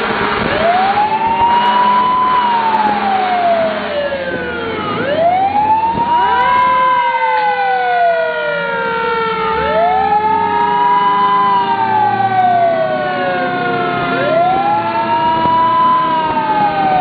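Fire truck siren in a mechanical-Q-style cycle, four times: it winds up quickly to a high pitch, then coasts slowly down. Each cycle lasts about four and a half seconds. Fainter falling siren tones overlap it.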